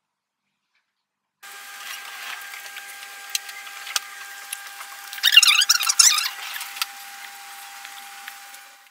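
Steady room hiss with a constant electrical whine, starting suddenly about a second and a half in, with scattered clicks of a computer mouse and keyboard. About five seconds in there is a brief squeaky, wavering sound, and everything cuts off suddenly near the end.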